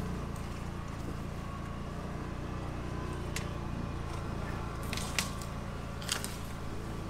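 Can-Am Defender HD10 UTV's Rotax V-twin engine running steadily at low trail speed, heard from inside its closed cab. A few sharp ticks come in the second half, from brush and twigs brushing against the machine.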